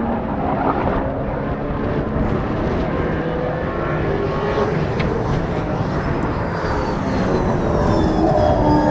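Brabham BT62 race car's naturally aspirated V8 running at speed on track, its pitch rising and falling with throttle and gear changes, getting louder near the end.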